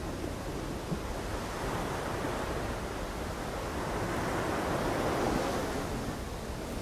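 Sea waves washing up on a sandy beach: a steady rush of surf that swells around four to five seconds in and then eases.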